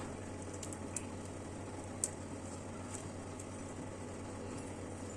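Roasted black cardamom pods being opened by hand to take out the seeds: two or three faint small clicks, about one and two seconds in, over a low steady hum.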